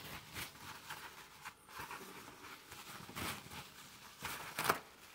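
Scattered rustling and scuffing noises, with a sharper scuff near the end.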